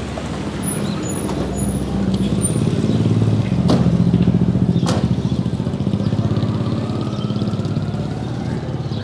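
A motor vehicle's engine running at low speed, growing louder toward the middle and then easing off. Two sharp clicks come a little over a second apart around the middle.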